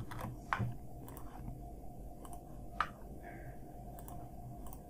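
A handful of separate, sparse clicks from a computer keyboard and mouse, the sharpest about half a second in and near three seconds, over a faint steady hum.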